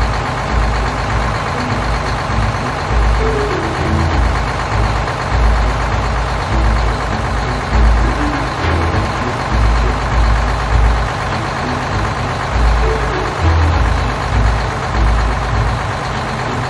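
Heavy truck engine running steadily with a deep, unevenly pulsing rumble, a driving sound effect for a cartoon lorry.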